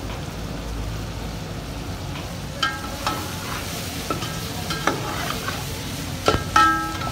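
Chicken pieces frying in oil in an aluminium pot, sizzling steadily while a metal ladle stirs them. The ladle scrapes and clinks against the pot with short ringing knocks, starting about two and a half seconds in, the loudest near the end.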